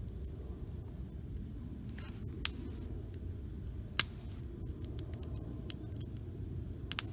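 Wood campfire burning, crackling with scattered faint ticks over a steady low rumble, and sharp pops about two and a half seconds in and, loudest, about four seconds in.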